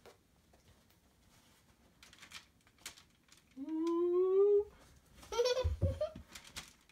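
A young child's voice: a drawn-out vocal sound rising in pitch about halfway through, followed by more short babbling sounds. Soft knocks and a thud of hardcover books being set down on a Duplo brick bridge.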